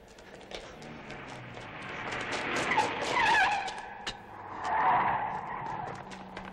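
Car tyres squealing twice as cars brake hard, over a patter of quick footsteps.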